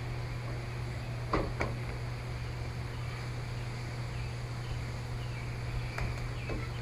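A steady low hum, with a few small clicks about a second and a half in and again near the end, as the plastic back cover of a tablet is pried at.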